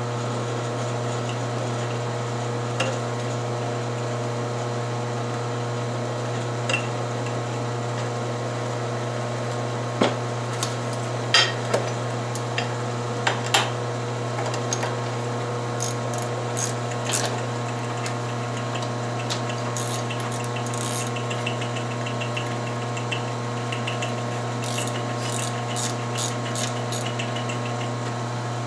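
Drill press motor running steadily while a twist bit step-drills a bolt hole into 3/8-inch 4140 steel plate. Scattered sharp metallic clinks come through the middle, and a run of fast light ticking comes later.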